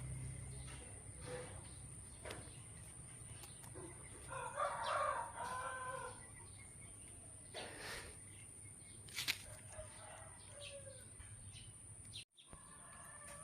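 A rooster crowing once, a drawn-out crow of about two seconds about four seconds in, with shorter chicken calls later. Faint scattered clicks and a steady high-pitched tone run underneath.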